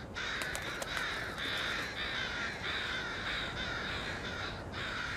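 A group of American crows cawing over and over, harsh calls overlapping with hardly a pause. These are alarm calls given on finding a dead crow, the kind that draws more crows in.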